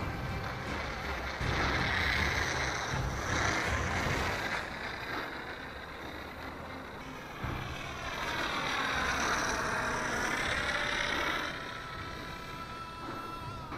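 Electric motor and propeller of an FMS 1.4 m Mitsubishi Zero RC model plane whining as it makes two passes overhead, about two seconds in and again about eight seconds in, its pitch dipping and rising each time. Wind rumbles on the microphone underneath.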